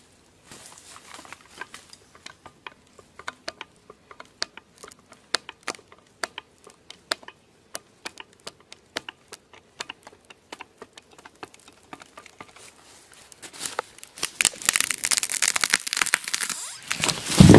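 Hydraulic felling wedge being pumped in a tree's back cut: a run of sharp, irregular clicks and snaps as the wood is forced open. From about 14 s the hinge fibres crack and tear in a dense crackling as the tree tips over, and a heavy thud of the falling trunk begins right at the end.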